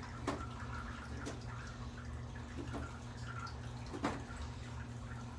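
Juvenile Nile monitor lizard eating a toad: a few short, wet, sharp clicks from its jaws. The loudest comes about four seconds in, over a steady low electrical hum.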